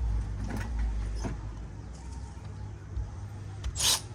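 Hand work on engine parts: a few light clicks, then one short, loud scrape a little before the end, over a steady low hum.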